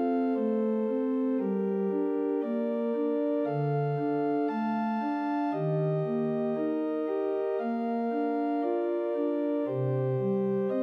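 Instrumental background music: a slow melody of held, organ-like keyboard notes over low bass notes, with no singing.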